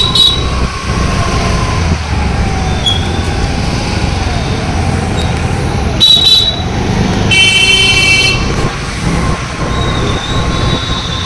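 Busy street traffic running steadily, with vehicle horns honking: a short blast about six seconds in and a longer one about a second later.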